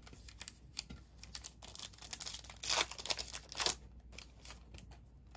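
Foil wrapper of a Panini Contenders football card pack being crinkled and torn open: a run of crackling rustles, loudest in the middle.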